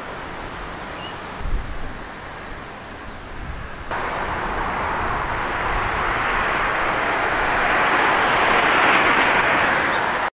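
Steady outdoor rushing noise with a brief low thump about one and a half seconds in. About four seconds in it changes abruptly to a louder, brighter rush that swells toward the end.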